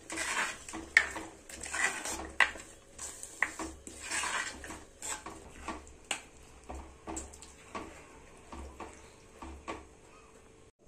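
Wooden spoon stirring thick mutton curry in a pot, scraping and knocking against the pan in a series of strokes about one or two a second, louder at first and fainter after the first few seconds.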